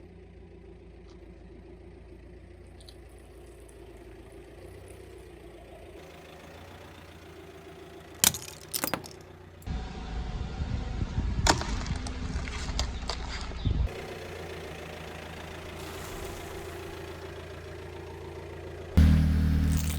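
A car engine running low and steady. Then come a few sharp cracks and a louder low rumble as the car rolls over objects and crushes them, and a loud low thud near the end.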